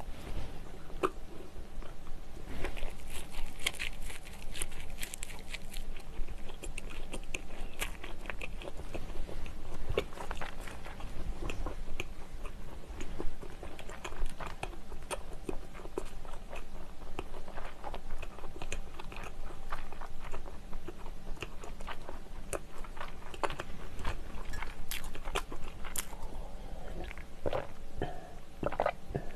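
Close-mic chewing of a mouthful of sausage onion bread, a steady run of short wet clicks and crunches. Near the end, swallowing as she drinks milk from a glass.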